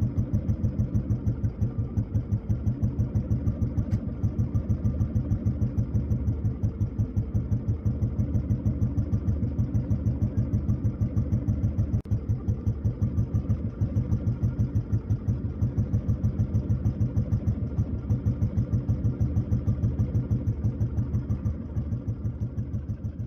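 Royal Enfield Bullet 500's single-cylinder engine idling with a steady, even beat.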